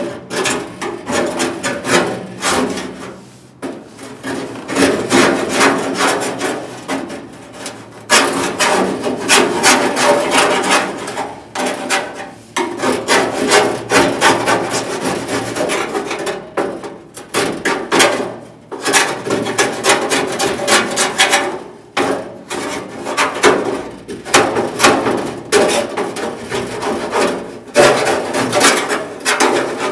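Rapid back-and-forth strokes of a hand tool scraping and rubbing old sealer off the sheet-metal inner panel of a pickup door. The strokes come in runs with brief pauses between them.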